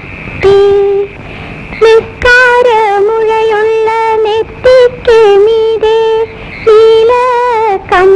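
A woman's high voice singing a Malayalam film song, in long held notes with vibrato and phrases broken by short pauses.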